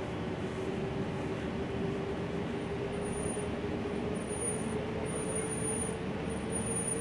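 Gillig low-floor city bus heard from inside the cabin, its engine and drivetrain running with a steady whine that slowly rises in pitch as the bus gathers a little speed, over a constant rumble of road and cabin noise.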